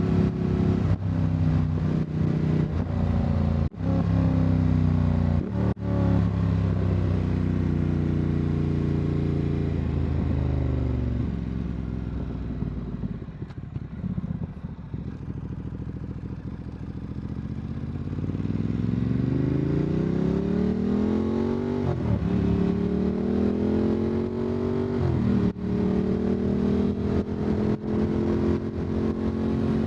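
Motorcycle engine riding along, heard through a mic inside the rider's backpack. Its note drops out briefly twice near the start and falls as the bike slows about a third of the way in. It then climbs again with two short breaks, like gear changes, and holds steady near the end.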